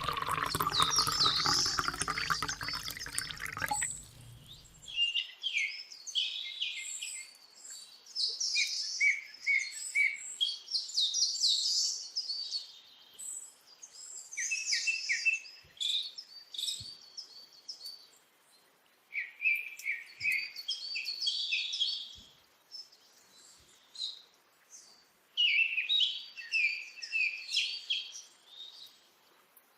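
Small birds chirping and twittering in short bursts of quick high notes, coming in groups every few seconds with quiet gaps between. For the first four seconds a rushing, watery noise runs under them and stops suddenly.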